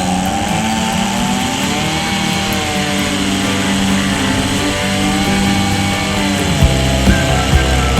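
Chainsaw engine running hard, its pitch rising and falling as it works, over background music with a beat that comes in stronger near the end.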